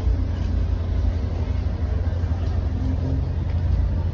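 Steady low rumble of street traffic and nearby cars.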